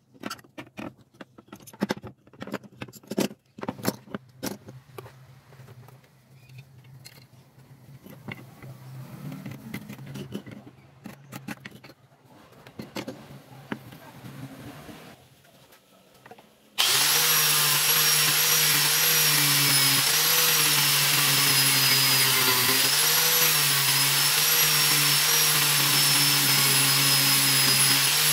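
Knocks and clicks from wooden strips and bar clamps being handled. About two-thirds of the way in, an angle grinder fitted with a sanding pad starts abruptly and runs steadily at full speed, with a whine that dips slightly in pitch now and then.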